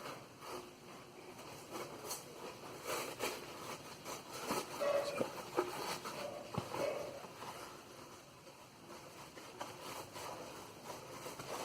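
Faint rustling, scraping and light clicks of hands handling the action camera's carry bag and the plastic mounts inside it.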